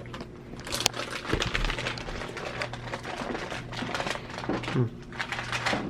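Plastic Oreo cookie packaging crinkling and crackling as it is handled, with a rapid run of small clicks and a sharper crack about a second in.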